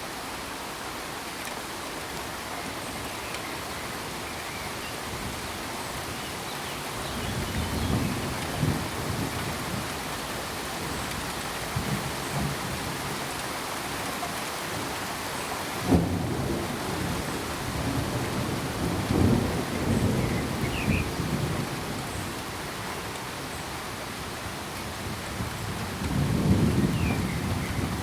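Steady rain hissing, with thunder rumbling in low swells from about a quarter of the way in. Just past halfway a sharp thunderclap cracks and rolls into a long rumble, and another rumble swells near the end.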